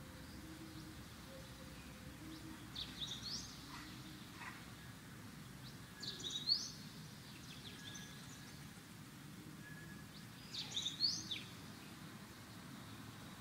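A bird chirping in three short bursts of quick, high, rising notes, over a faint low background hum.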